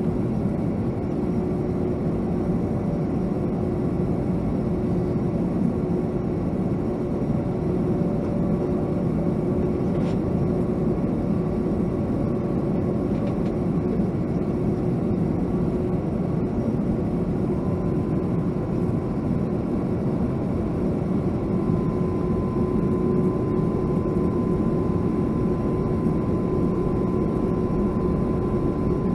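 Steady jet-engine hum heard inside the cabin of a Boeing 757-200, with a constant low whine; a higher steady tone joins past the middle.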